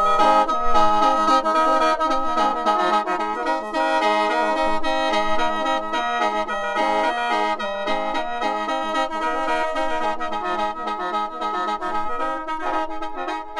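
Khaen, the Lao/Isan bamboo free-reed mouth organ, playing an instrumental passage of chords and melody over steady held drone notes, getting gradually quieter near the end.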